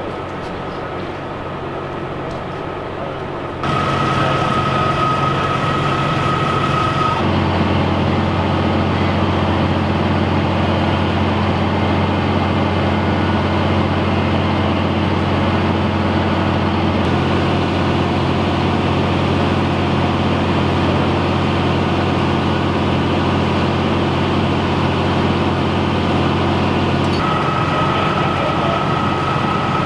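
Fire truck's diesel engine running steadily, suddenly louder a few seconds in and then holding a stronger, deeper hum through most of the stretch, typical of the engine turning the pump. A thin high steady whine sounds briefly early on and again near the end.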